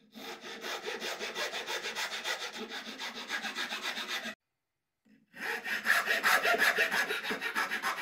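Flat steel hand file rasping across the edge of a thin Baltic birch plywood piece in quick back-and-forth strokes, filing out a notch. The filing stops about four seconds in and starts again, louder, about a second later.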